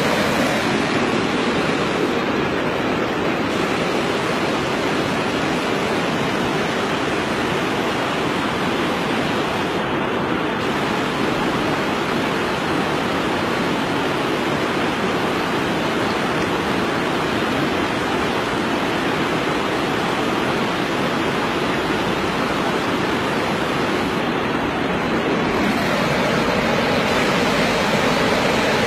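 Steady rushing of flowing water, an even hiss without a break.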